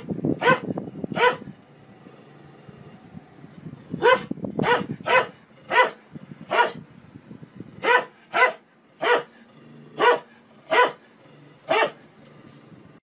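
Dog barking at a front-loading washing machine as its drum turns: about fourteen short, sharp barks, three at first, then after a pause of a couple of seconds a steady run of single barks every half second to a second.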